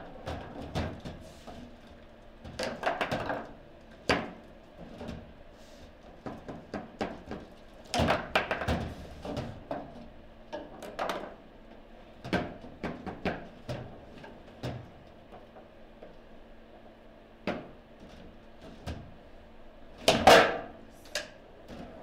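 Table football game in play: the ball and rods knocking against the plastic players and the table, heard as scattered sharp knocks and clacks, with a loud clatter about twenty seconds in.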